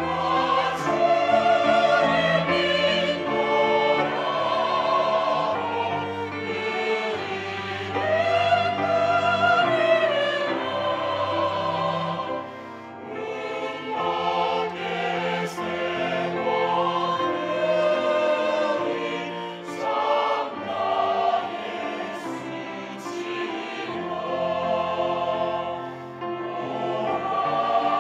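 Mixed church choir singing a slow hymn in Korean, accompanied by grand piano, violin and cello, with a brief pause between phrases about twelve seconds in.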